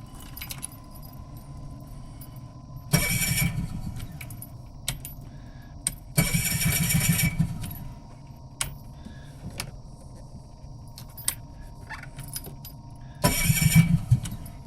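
Car engine cranking on the starter three times without catching: a short crank about three seconds in, a longer one about six seconds in, and another near the end. Keys jangle and click in the ignition between attempts.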